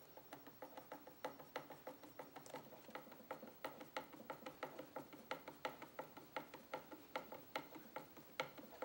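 Hand screwdriver driving a small sheet metal screw through a tweeter's mounting flange into a speaker baffle plate: a run of faint, irregular clicks, about four or five a second.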